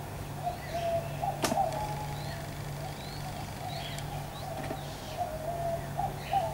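Birds calling in the bush, with wavering whistled notes and short high chirps, over a steady low hum; one sharp click about a second and a half in.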